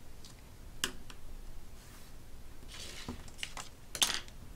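Small handling noises on a craft table as a pencil and a clear acrylic ruler are used and the ruler is moved aside: a few light clicks and a brief scraping rustle, with a sharper click about four seconds in.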